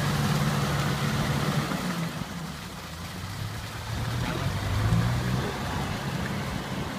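Farm tractor's diesel engine running under load while driving a rotary tiller through paddy mud. Its note drops and eases about two seconds in, then picks up again about two seconds before the end.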